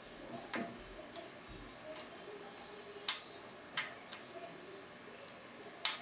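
Sharp metallic clicks of a lock pick and tension wrench working the anti-pick pins inside a Vachette V5 pin-tumbler cylinder. About five clicks come at uneven intervals, with the loudest about three seconds in and just before the end.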